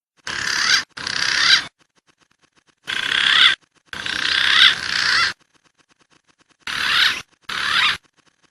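Bird-lure recording of wild pigeon and dove calls, heard as six short bursts of high warbling whistles, each cut off abruptly, with gaps of near silence between.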